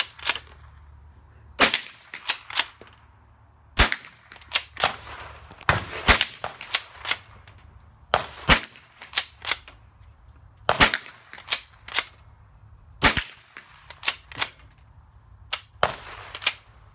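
.22 rifle being fired repeatedly: a long string of sharp cracks, about twenty-five shots at irregular spacing, some single and some in quick runs of two to four.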